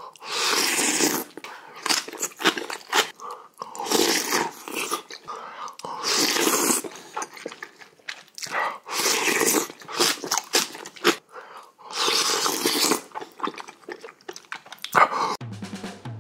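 Close-miked eating sounds: loud slurps of hot seaweed soup with rice about every two to three seconds, with chewing and crunching of kimchi between them.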